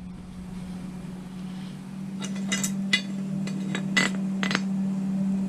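Metal parts and tools clinking and knocking as the strut rod and its bushing are worked on: about eight irregular sharp clicks and taps starting about two seconds in, over a steady low hum.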